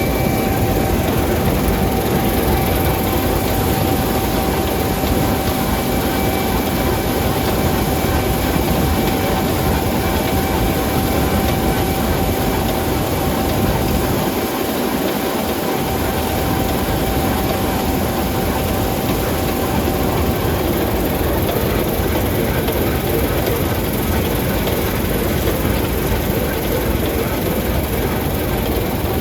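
Combine harvester running steadily while harvesting wheat, a constant mechanical drone with a thin steady whine through it that fades out about two-thirds of the way in.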